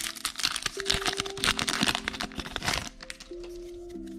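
Foil booster-pack wrapper crinkling and crackling as it is torn open by hand, over steady background music; the crinkling stops about three seconds in.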